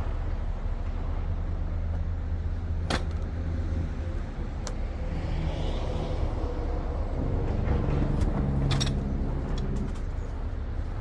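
A Harley-Davidson motorcycle's V-twin engine running low and steady, growing louder about seven seconds in and easing off near the end, with a few sharp clicks over it.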